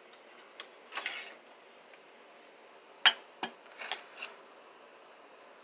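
Metal kitchen utensils clinking and knocking as they are handled and set down on a table: a few separate sharp clicks, the loudest about three seconds in.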